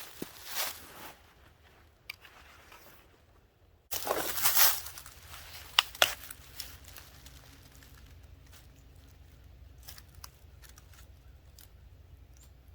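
Dry autumn leaves and twigs rustling and crunching, in uneven bursts with a sharp crack or snap about six seconds in and scattered small crackles between.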